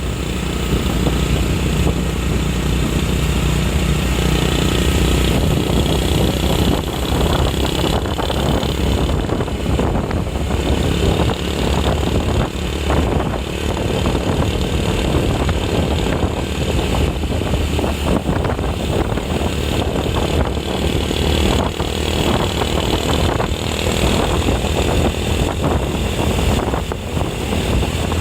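Motor vehicle engine running steadily with road noise while travelling along a road; no telolet horn melody stands out.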